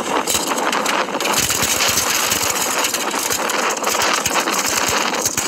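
Steady rough noise of wind and choppy water aboard a small open fishing boat, with many small knocks and rattles.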